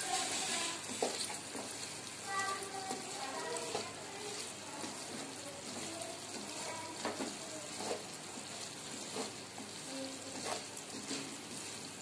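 Goat mutton pieces sizzling in hot oil in a pan while a wooden spatula stirs them, with scrapes and light knocks of the spatula against the pan.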